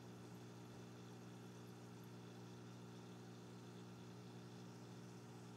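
Near silence with a faint, steady low hum and no other events.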